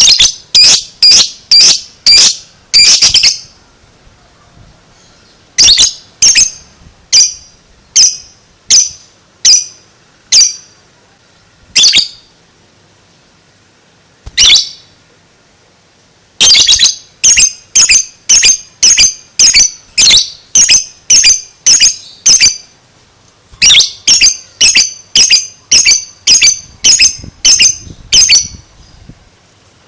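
Lovebird doing its 'ngekek' chatter: a series of high-pitched calls, about one to two a second, in four runs broken by short pauses.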